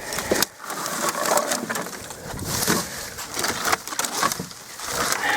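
Crunching, rustling and clattering of junk and debris being shifted and pushed aside by hand, with many small cracks and knocks.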